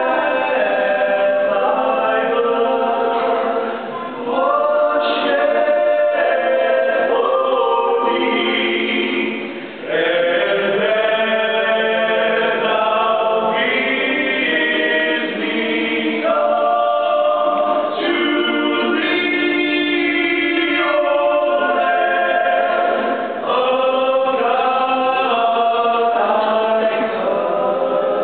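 Male a cappella group of five voices singing in close harmony, holding long chords with short breaks between phrases.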